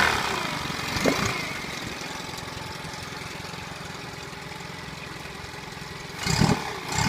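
Yamaha F25 four-stroke outboard motor idling steadily after being throttled back, with a louder knock about a second in and another pair near the end.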